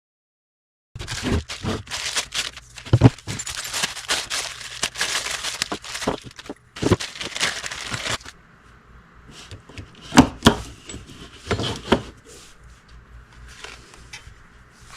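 Packaging being crinkled and torn open, with crackling and clicks for about seven seconds, then a few sharp knocks of parts being handled.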